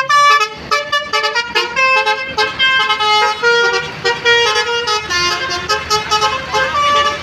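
A bus's basuri telolet horn playing a tune: a quick run of short pitched horn notes stepping up and down, with a few notes held longer.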